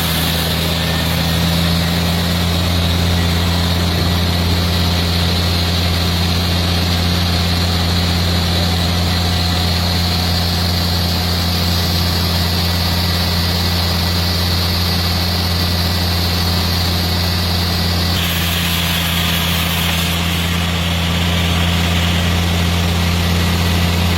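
A chainsaw running steadily while cutting through a thick wooden stump, its pitch creeping slowly upward, with an abrupt change in the sound about 18 seconds in.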